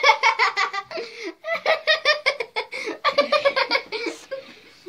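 Two young girls laughing hard together, in two long fits of quick, repeated giggles that die away near the end.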